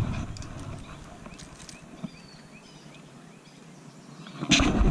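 Quiet outdoor background with a few faint, quick high chirps in the middle. Near the end comes a sudden loud burst of rustling and knocking close to the microphone as a caught green sunfish is grabbed and handled.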